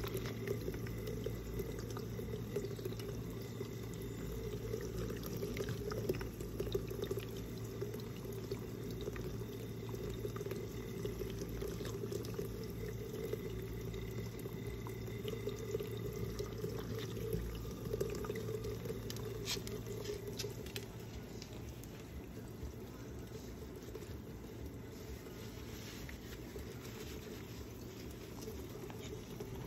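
Small pet water fountain running: water bubbling and splashing steadily from its spout into the bowl over a low steady hum. A few light clicks, and the sound drops a little in level about two-thirds of the way through.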